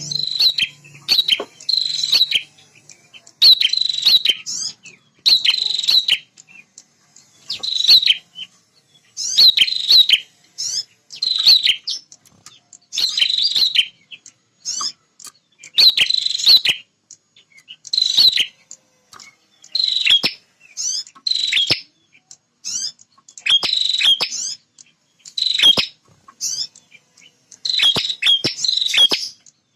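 Male prenjak (prinia) singing its territorial song: short, loud bursts of rapid, high chirping notes, repeated every second or two.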